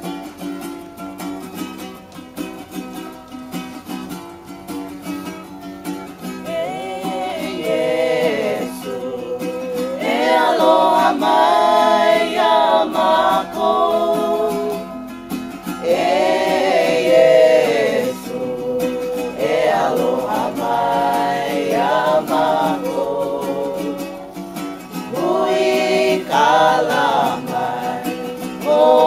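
Strummed string accompaniment with a group of voices singing a song. The strumming plays alone at first, and the voices come in about six seconds in and carry on in phrases with short breaks.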